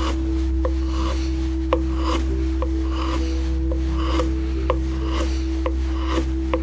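Small hand carving gouge scooping short cuts into beech: a repeated scraping of steel through wood fibres, about once a second. Beneath it runs a steady low hum with a regular soft tick about twice a second.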